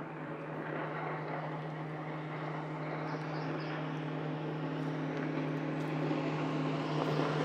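A motorboat's engine running on the river, a steady drone that grows gradually louder as the boat approaches at speed.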